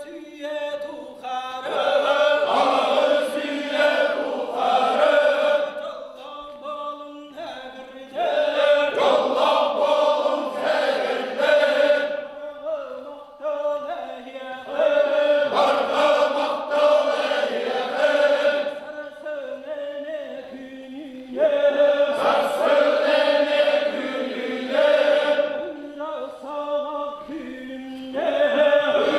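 Men's voices singing a Sakha osuokhai round-dance song in call and response: quieter lead lines alternate with louder chanted phrases from the group, the cycle repeating about every six or seven seconds.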